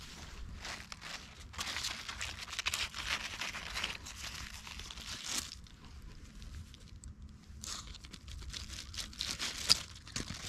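Leaves rustling and crinkling as garden plants are handled and parted, in two spells, with a sharp click near the end.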